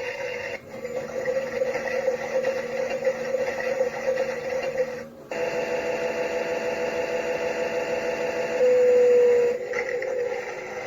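Theo Klein Bosch toy washing machine playing its recorded wash-cycle sounds through its small built-in speaker: a steady, tinny whir that breaks off twice. Near the end comes a loud steady beep lasting about a second.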